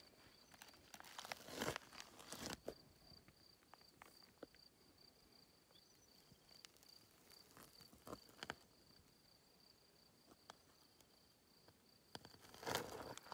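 Faint high insect trill, a steady pulsing tone that starts a couple of seconds in, with scattered crunches of footsteps on gravel, louder near the start and near the end.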